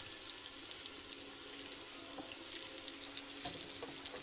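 Pakoras frying in shallow oil in a pan: a steady sizzle with many small crackles.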